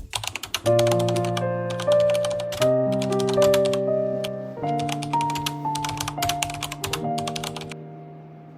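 Background music of soft held keyboard chords that change every second or two, overlaid with a rapid patter of crisp clicks like keyboard typing. The clicks stop shortly before the end and the last chord fades away.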